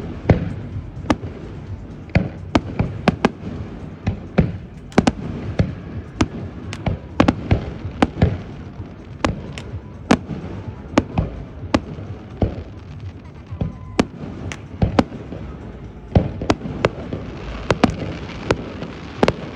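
Aerial fireworks display: a rapid, irregular string of sharp bangs from shells bursting and launching, several a second, over a continuous low rumble.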